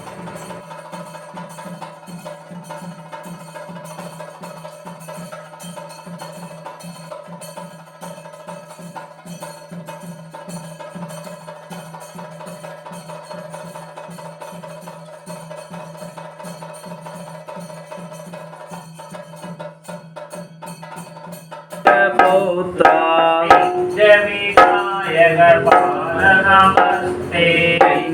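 Tholpavakoothu temple-performance music: a steady drone with regular drum strokes. About two-thirds of the way through, loud chanting of verse joins in over the drum.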